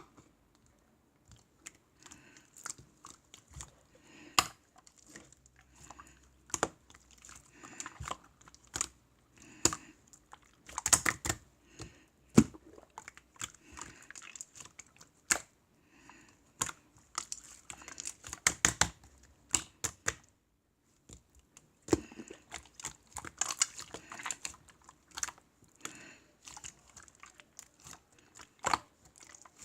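Irregular tapping and clicking mixed with crinkling rustles, with a short pause about twenty seconds in.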